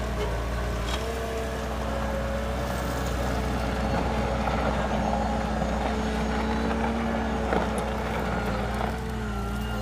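Diesel engine of heavy loading machinery running steadily at an even speed.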